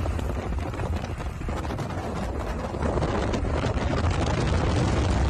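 Wind buffeting the phone's microphone over the rumble of road and engine noise from a moving vehicle, steady and loud.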